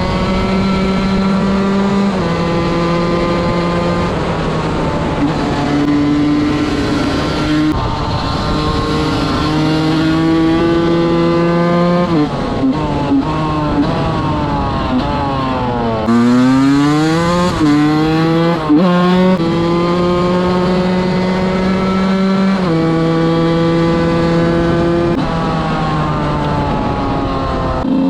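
125 cc two-stroke enduro motorcycle engine being ridden hard at high revs. Its note holds for a few seconds and then steps to a new pitch as it shifts gear. About halfway through the revs drop low and then rise sharply again.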